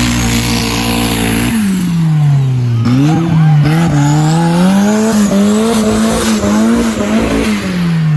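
A vehicle engine held at a steady speed, then dropping about a second and a half in and revving up and down repeatedly.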